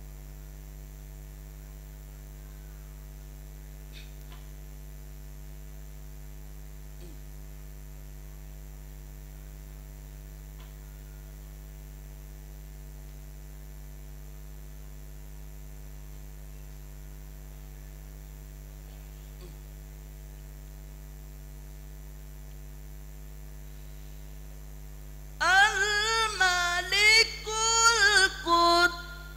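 Steady electrical mains hum from the microphone and sound system, with a few faint clicks. About 25 seconds in, a man's voice comes in with melodic, drawn-out Quran recitation into the microphone, much louder than the hum.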